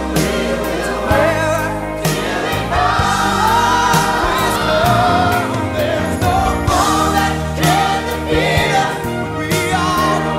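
Christian gospel song with a choir singing over a band, with a steady drum beat.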